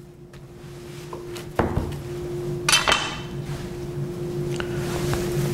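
Chef's knife and quesadilla quarters being handled on a wooden cutting board: a dull knock about one and a half seconds in, then a short ringing metal clink near three seconds, over a steady low hum.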